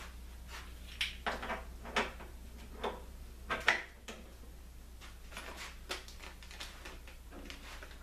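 Handling noises: a string of sharp clicks and knocks as parts and packing are picked up and set down, the loudest a little before halfway, followed by softer clicks and rustles. A faint steady low hum runs underneath.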